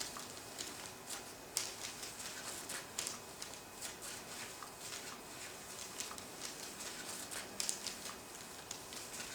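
A cat playing with a toy: irregular light clicks, taps and rustles, several a second, with a few sharper ticks now and then.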